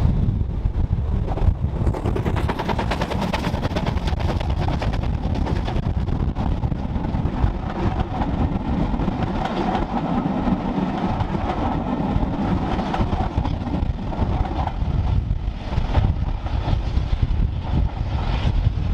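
Steam-hauled passenger train passing: the coaches rumble by on the rails with a run of fast, even beats, and the steam locomotive works ahead as it draws away.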